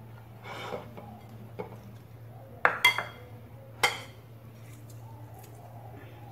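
Ceramic plates and bowls knocking and clinking on a tabletop as they are handled: a few sharp clinks with a short ring, the loudest three coming close together between about two and a half and four seconds in. A faint low steady hum runs underneath.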